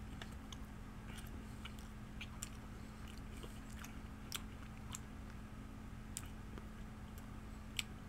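A man chewing peppered beef jerky: faint, scattered mouth and teeth clicks, with a few sharper ones, over a steady low hum.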